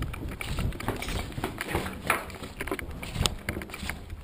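Quick footsteps on a hard concrete floor, irregular thuds and knocks several times a second, with clothing and kit rustling close to the microphone.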